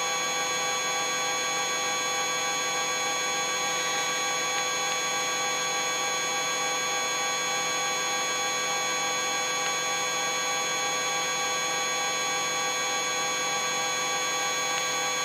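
Eurocopter EC135 twin-turbine helicopter in flight, heard from inside the cockpit: a steady turbine and drive-train whine made of many held tones over a hiss, unchanging throughout.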